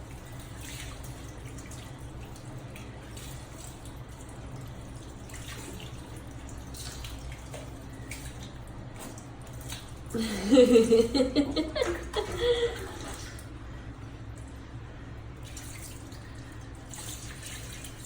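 Water dripping and trickling during a puppy's bath, over a steady low hum. About ten seconds in, a loud voice-like cry lasts a couple of seconds.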